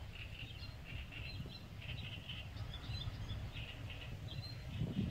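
Small birds chirping in many short calls, over a steady low rumble.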